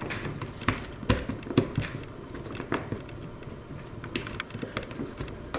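Plastic parts of a Husky 1750 pressure washer wand being handled and pressed together by hand: irregular small clicks and taps, a few sharper ones about a second in and near the middle.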